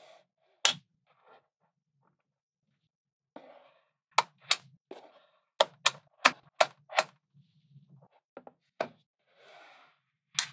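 Blocks of small magnetic balls snapping onto a wall of magnetic balls, making sharp clicks. There is one click near the start, then a quick run of about seven clicks in the middle, and a last one near the end. Soft rustling of the balls can be heard between the clicks.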